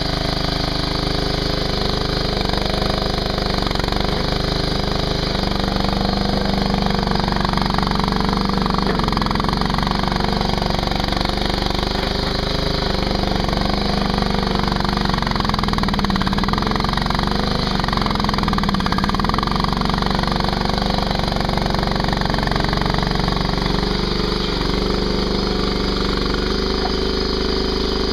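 Engine of a Ditch Witch SK300 mini skid steer running steadily at working speed, its pitch sagging and recovering a few times midway as it takes load.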